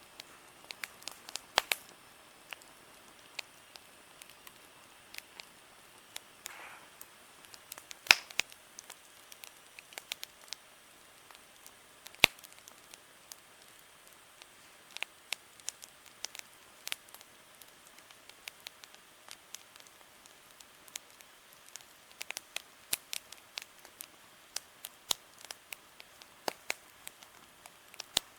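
Wood campfire crackling, with irregular sharp pops and snaps over a faint steady hiss, the loudest pops about eight and twelve seconds in.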